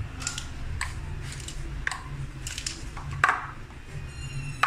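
Light clicks and knocks of a plastic jug and ice lolly mould being handled on a stone countertop, with one sharper knock about three seconds in, over a steady low hum.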